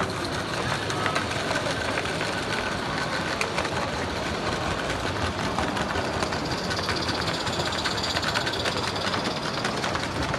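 Scratch-built 16mm-scale live-steam model of a Ffestiniog double Fairlie locomotive running steadily past with its train, a continuous rattle of many small clicks from wheels and rolling stock on the track.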